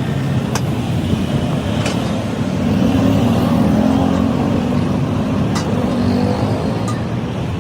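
Road traffic: a motor vehicle engine running close by, swelling louder about two and a half seconds in and easing off again, with a few faint clicks.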